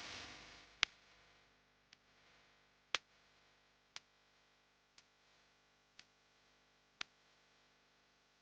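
Near silence broken by faint, sharp ticks about once a second.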